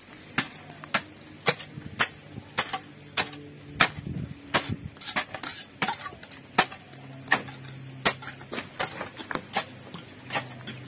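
Hoe blade chopping into soil to dig a drainage channel, a sharp strike roughly twice a second.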